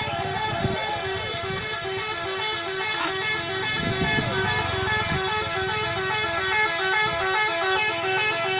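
Bus telolet musical horn playing a tune as a quick run of stepped notes, cutting off abruptly at the end.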